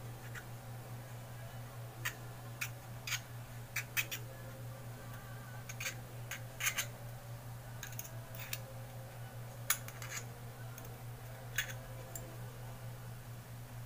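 Irregular small clicks and taps of metal parts being handled while a Zippo lighter's wick and cotton packing are adjusted, about a dozen of them scattered over several seconds, over a steady low hum.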